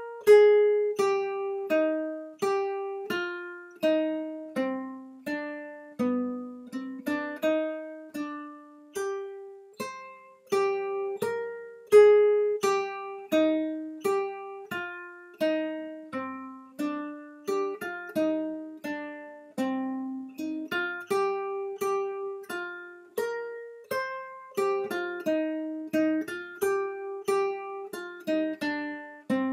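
Nylon-string classical guitar with a capo at the third fret, picking a song melody one note at a time in C minor. The notes come about one or two a second, each ringing out, and the phrase ends on a longer held note.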